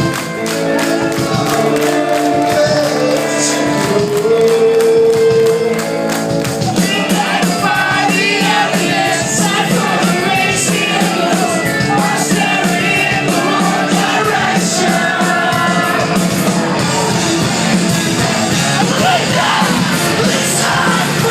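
Live rock music with sung and shouted vocals, reverberant as in a large hall. It opens on held sustained notes, then fills out into a dense band sound with voices about six seconds in.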